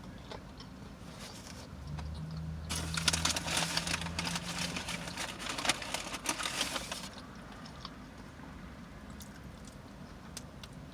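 Close crackling and crunching, a dense run of fine clicks lasting about four seconds starting near three seconds in, with a low hum under its first part.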